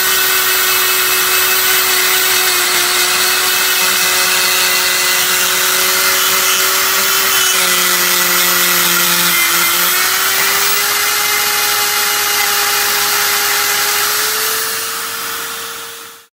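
Straight die grinder with a grinding stone running inside a port of a cast-iron classic Mini A-series cylinder head, porting and smoothing the casting. A steady high whine that dips slightly under load about nine seconds in, then fades out near the end.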